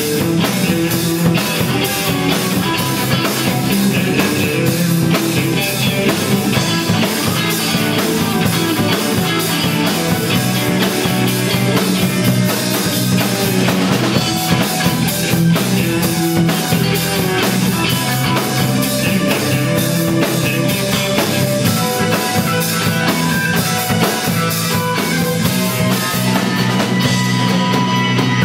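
Live rock band playing a song, with a drum kit keeping a steady beat under guitars and bass.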